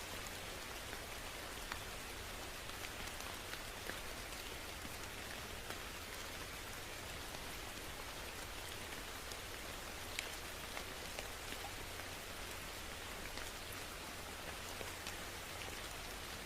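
Steady rain falling, an even hiss with scattered sharper drop ticks on a surface.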